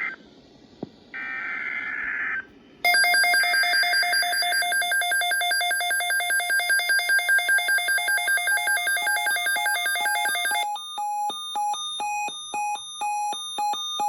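Emergency Alert System tones: a short burst of digital data screech about a second in, then a loud electronic alarm of rapid repeating square-wave beeps. About eleven seconds in the alarm switches to beeps alternating between two pitches, then cuts off abruptly. The tones signal a severe thunderstorm watch alert.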